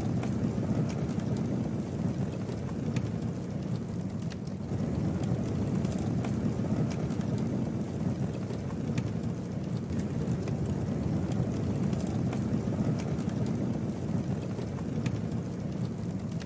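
Campfire burning: a steady low rush of flames with scattered sharp crackles and pops of burning wood.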